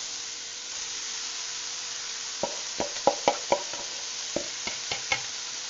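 Diced BBQ pork, shrimp and onion sizzling steadily in a hot wok. About halfway through, a quick run of sharp knocks and taps as the rice is dropped into the middle of the pan.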